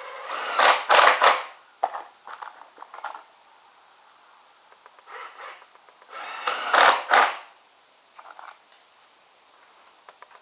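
Cordless impact driver driving drywall screws into 2x4 lumber, in two short runs of about a second and a half each, one near the start and one about six seconds in, with small clicks and knocks of handling between them.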